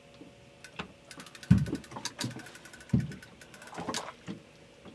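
Rapid clicking from a boat fishing reel and several dull knocks on a small boat's deck, the loudest about a second and a half in and again about three seconds in, as an angler winds down and strikes into a bite.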